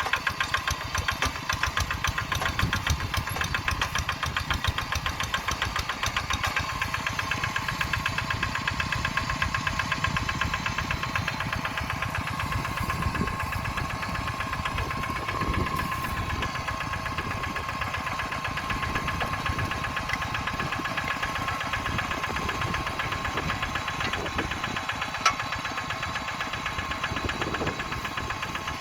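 The Kubota RD85DI-2s single-cylinder diesel engine of a Quick Zeva G3000 two-wheel hand tractor, running steadily with a rapid knocking beat. A single sharp click comes near the end.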